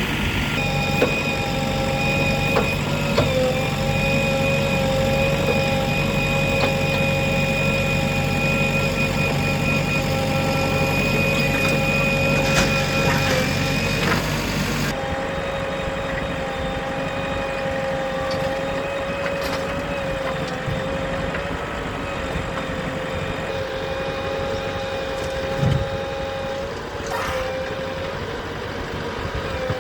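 Diesel engines of working heavy machinery, a tractor or backhoe loader, running steadily with a sustained whine. The sound changes abruptly about halfway through, with a few brief knocks near the end.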